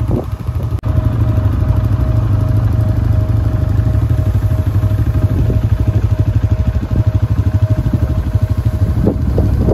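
ATV engine running as the quad rides along a dirt trail, a steady low rumble with a fast pulsing.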